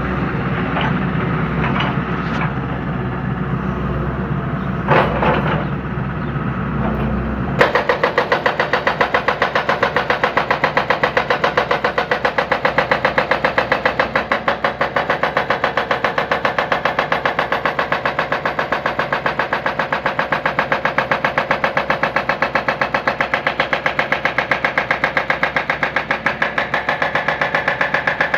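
John Deere 160C excavator's diesel engine running, then about a quarter of the way in its hydraulic breaker starts jackhammering: a rapid, steady pounding into the concrete silo foundation that carries on.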